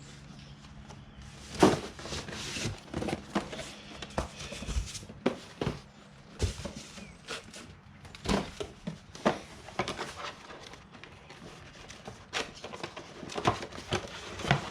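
Irregular clicks, knocks and rustling from brake parts and their packaging being handled and unpacked.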